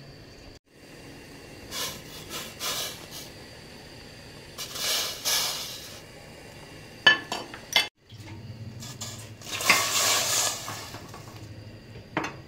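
Kitchenware handling: dishes and utensils clinking against a stainless steel pot, with scraping, as chopped onion and a piece of raw chicken are put into it. There are several sharp clinks a little past halfway, then a low steady hum.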